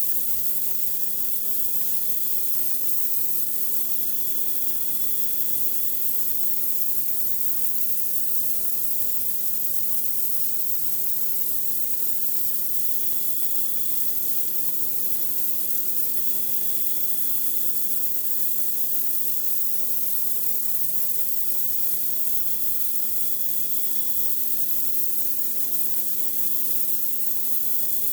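Pressure washer spraying a high-pressure jet of water: a steady hiss over the machine's steady hum.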